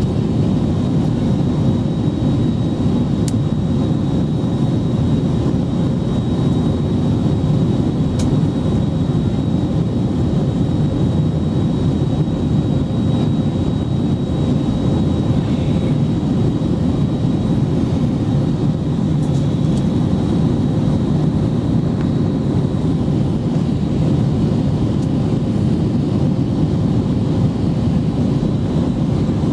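Airbus A321 cabin noise in flight: the steady roar of jet engines and airflow heard through the fuselage, with a faint high-pitched whine held underneath.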